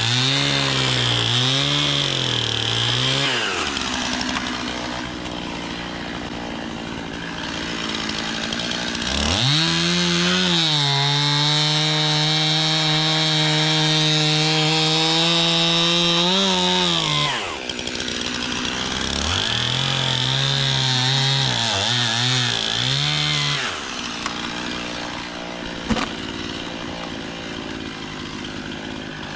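Stihl MS 291 two-stroke chainsaw cutting wood in three bursts at full throttle, its pitch wavering as the chain loads up in the cut, dropping back to idle between cuts. A single sharp click near the end.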